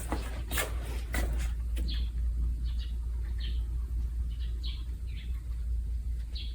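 Small birds chirping: short, high calls repeated every half second or so, over a steady low rumble, with a few sharp clicks in the first second and a half.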